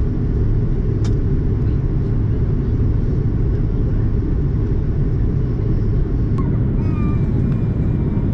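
Steady low rumble of airflow and engine noise inside the cabin of an Airbus A330 descending on approach. There is one sharp click about a second in.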